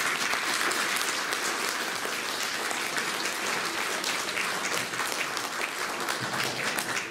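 Audience applauding, dense steady clapping that eases off slightly toward the end.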